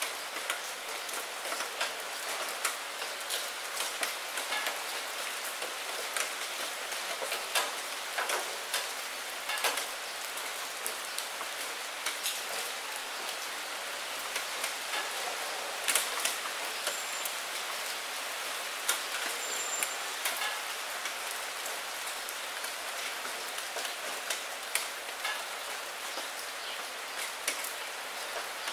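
Steady rain falling into a puddle among wet fallen maple leaves: an even hiss with many sharp, separate drop ticks and small splashes.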